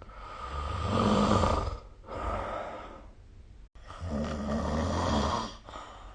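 A person snoring: two loud snores, each about a second and a half long, the first followed by a shorter, softer breath out.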